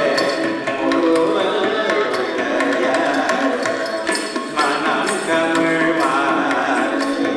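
Live Carnatic music for Bharatanatyam: a keerthanai in raga Mohana Kalyani set to Adi tala, with voice and violin carrying gliding melodic lines over a steady run of mridangam strokes.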